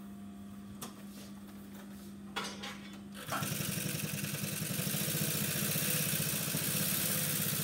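Brother twin-needle needle-feed industrial sewing machine. Its motor hums steadily, with a couple of clicks, then about three seconds in the machine starts stitching through thick leather, a fast, even rattle of the needle bar and feed that keeps going.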